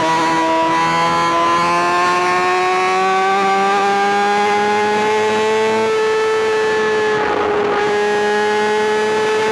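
Kawasaki ZX-6R's inline-four engine running at high revs, its high pitch climbing slowly and then holding. A rush of noise rises and falls briefly near the end.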